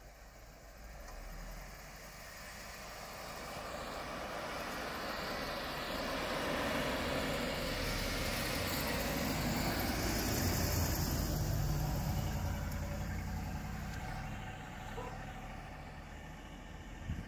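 Hummer H2's V8 engine running as the truck drives slowly through deep snow, its tyres churning. The sound grows louder as it approaches and passes, peaking about two-thirds of the way through, then fades as it pulls away.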